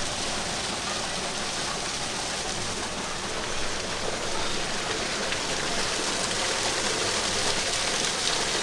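Steady hiss of running water, even throughout.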